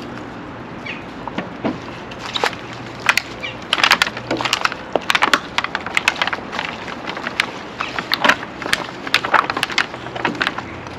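Aluminium foil pan crinkling and crackling as gloved hands toss raw chicken wings in seasoning. An irregular run of crackles and clicks begins about a second in.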